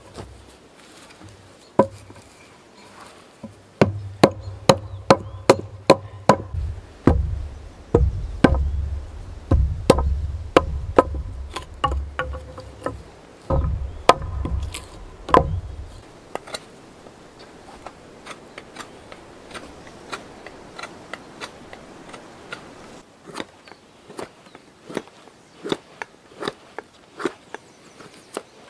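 Axe strokes on wood: a run of sharp knocks with heavy thuds, about two a second, from about four seconds in to about sixteen. After that, softer scraping and light clicks of a knife carving a wooden board.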